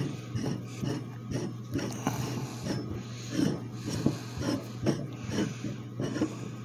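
Steel pulling adapter being turned by hand onto the threaded spindle of a slide hammer: light, irregular metal clicks and scrapes as the threads engage.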